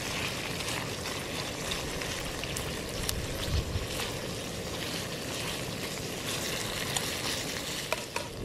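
Bacon sizzling in an aluminium frying pan on a camping stove, a steady crackling hiss, with a few light clicks of a spatula against the pan as the rashers are turned.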